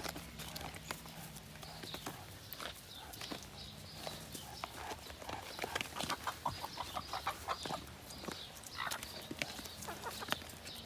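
Hens pecking at food in trays: many quick, sharp taps of beaks, coming in fast runs, with some soft clucking between.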